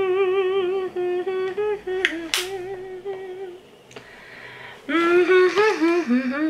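A woman humming: a long, wavering held note, then after a short gap a second hum that slides up and down in pitch. A few sharp clicks come about two seconds in and another shortly before four seconds.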